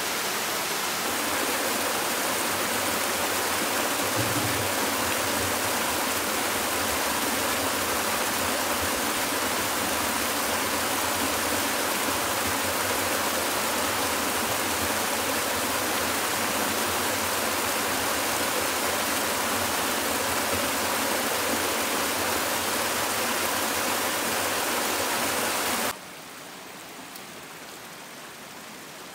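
Small mountain waterfall splashing down over rock: a loud, even rush of falling water. About three seconds before the end it cuts suddenly to the quieter, thinner trickle of a shallow creek running over stones.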